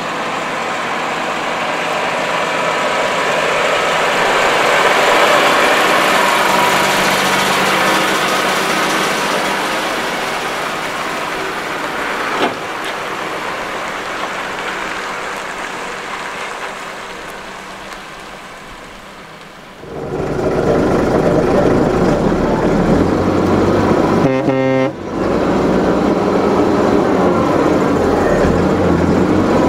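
Volvo lorry's diesel engine pulling past with a laden low-loader trailer, its sound swelling as it nears and fading away. About two-thirds through it cuts abruptly to a louder, steady low rumble.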